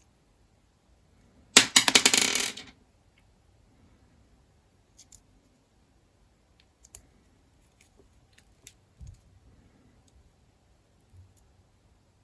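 Small metal knife parts dropping and rattling onto a hard work surface, a rapid run of clinks about a second and a half in that lasts about a second. After it come scattered light clicks as small parts and tools are handled.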